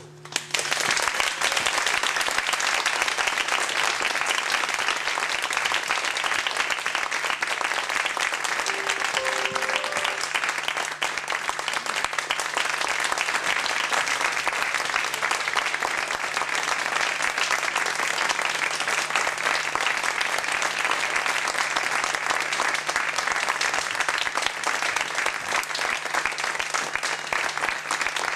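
Audience applauding steadily, the clapping starting as the violin music stops.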